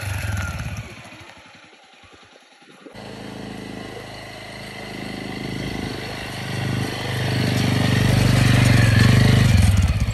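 Quad-bike ATV engine running at low speed, growing louder as it draws near and passes close near the end. There is an abrupt cut about three seconds in.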